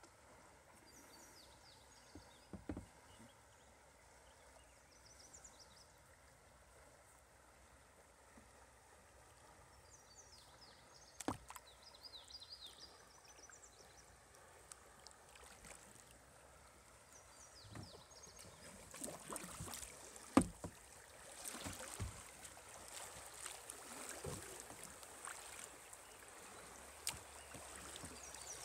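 Water sloshing and rushing around a kayak on a fast, muddy creek, with a few sharp knocks against the hull. The rushing gets louder in the last third as the kayak runs through choppier water.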